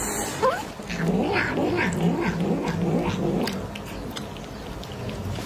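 Grey cat yowling and growling as a finger pokes at its open mouth: a short rising cry, then a wavering, drawn-out yowl for about three seconds that fades away.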